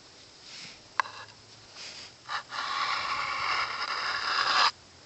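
Smith's 750-grit sharpening stone drawn by hand along the convex edge of a Svord Von Tempsky bowie knife's L6 tool-steel blade. A click about a second in and a short scrape, then one long gritty stroke of about two seconds that stops abruptly near the end.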